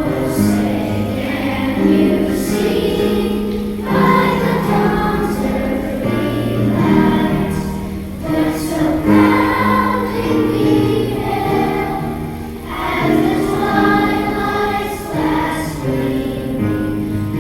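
A children's choir singing a song in unison over instrumental accompaniment.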